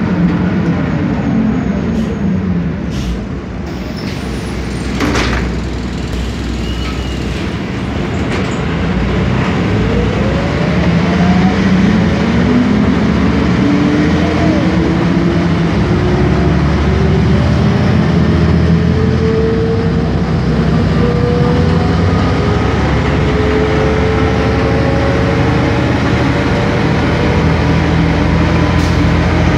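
Cabin sound of a 1993 Sanos S215 city bus with a MAN D2866UH six-cylinder diesel and ZF Ecomat automatic. The drivetrain winds down in pitch over the first few seconds as the bus slows, and there is one brief sharp noise about five seconds in. From about ten seconds the engine pulls again, its pitch rising slowly and steadily as the bus gathers speed.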